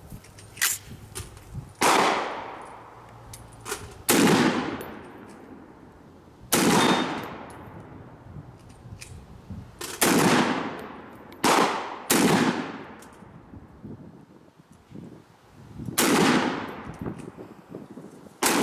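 Gunshots from a 7.5-inch-barrelled .50 Beowulf AR-style rifle: eight heavy reports at uneven intervals, some a second apart and others several seconds, each trailing off in a long echo lasting about a second.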